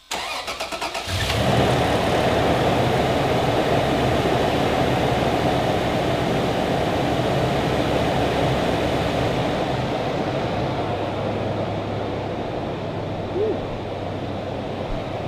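Toyota FJ Cruiser's 4.0-litre V6 cranked by the starter for about a second, then catching and settling into a steady idle on its first start after both knock sensors were replaced. It runs smoothly, 'like a kitten'.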